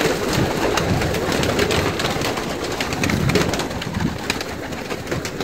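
A loftful of domestic pigeons cooing together, a dense overlapping murmur broken by scattered small clicks and scuffles.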